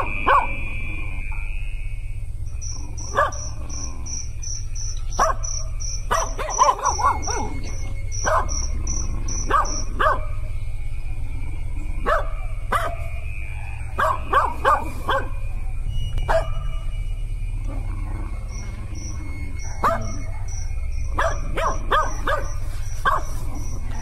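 A dog barking repeatedly: single barks and quick runs of several. Under the barks there is a steady low rumble, and a high pulsing chirp comes in two long stretches, about two or three pulses a second.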